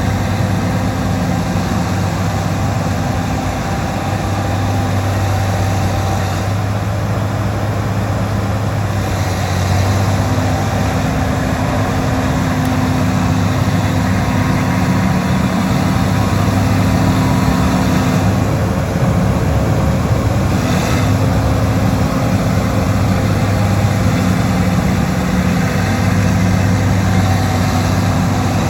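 Bulldozer's diesel engine running steadily, its low hum shifting slightly in pitch now and then.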